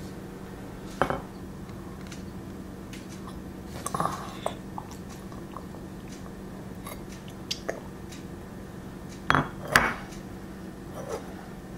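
Blue enamel mug knocking and clinking against a countertop as a small child drinks from it and sets it down: a few scattered knocks, the loudest two close together near the end. A steady low hum runs underneath.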